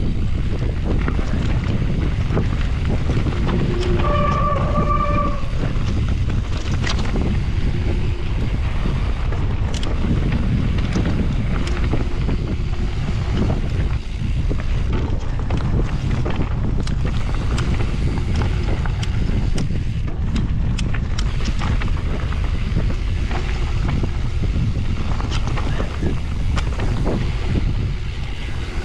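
Wind buffeting the camera microphone on a mountain bike riding down a trail, with the rumble of tyres on dirt and constant clicks and rattles from the bike over rough ground. A brief squeal sounds about four seconds in.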